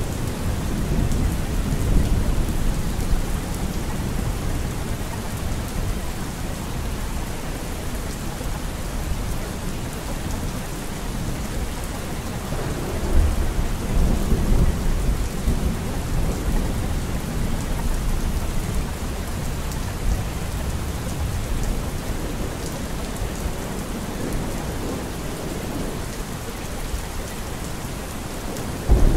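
Steady rain with low rolling thunder. The thunder swells louder about thirteen seconds in.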